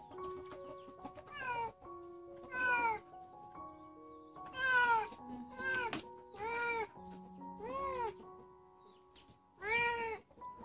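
A wet stray cat meowing about seven times while it is held and scrubbed in a bath, each call rising and falling in pitch, over soft background music.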